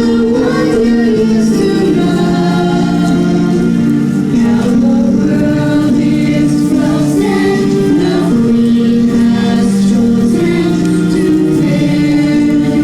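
A choir singing, holding sustained notes that move from pitch to pitch.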